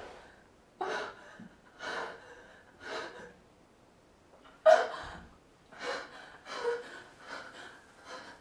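A woman gasping for breath again and again, about eight sharp gasps roughly one a second, the loudest a little past halfway: acted gasping performed for a take.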